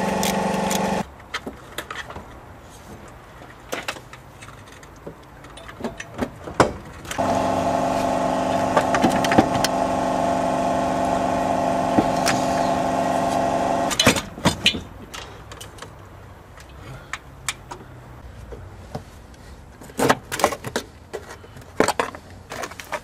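Metal hand tools clicking and knocking as a ratchet works bolts on a car's engine and gearbox. A steady motor hum stops abruptly about a second in, then comes back for about seven seconds mid-way.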